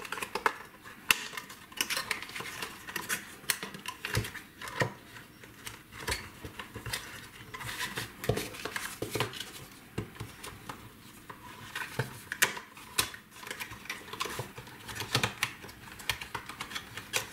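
Clear plastic gift box and paper card being handled: irregular clicks, taps and light crinkling as a card and envelope are fitted into the box.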